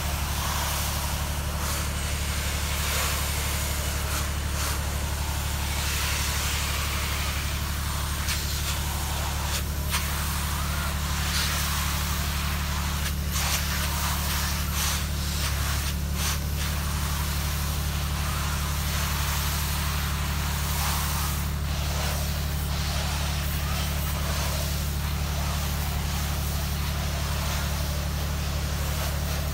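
The engine-driven pump of a soft-wash rig running steadily at an even speed, with a rushing hiss over it that swells and fades.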